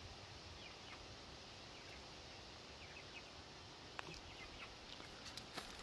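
Quiet outdoor background with a few faint bird chirps in the first half and some light clicks about four seconds in and again near the end.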